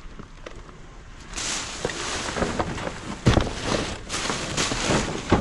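Rustling and clattering of trash and debris handled close to the microphone, starting about a second in, with a sharp knock about three seconds in and another near the end.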